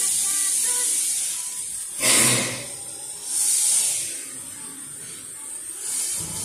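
Narrow-gauge steam locomotive letting off steam: a steady hiss that swells into loud blasts about two, three and a half, and six seconds in.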